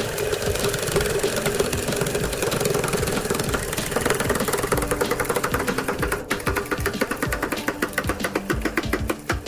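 Hydraulic press pump motor running with a steady hum while the ram slowly squeezes a metal candy tin. From about six seconds in, a fast, even run of clicks joins the hum.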